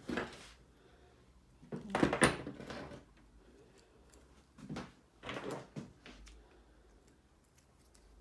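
Small parts and tools being handled and moved about on a work surface: a few short spells of rustling and clattering, the loudest about two seconds in.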